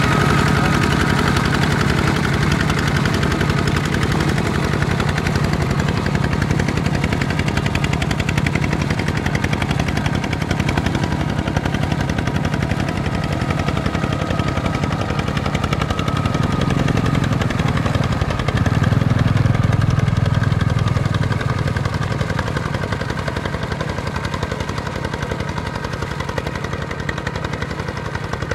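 Single-cylinder diesel engine of a ZT 155 two-wheel walking tractor running under load, a fast, steady chugging from its exhaust. It gets louder for a few seconds about two-thirds of the way in and is slightly fainter near the end.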